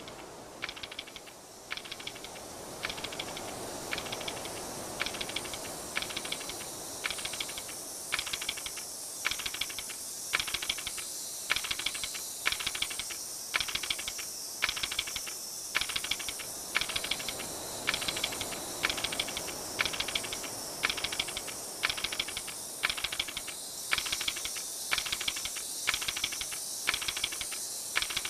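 Plastic toy fish's jointed tail mechanism clicking in short rattling bursts, about one to two a second, as it swims across, over a steady high hiss.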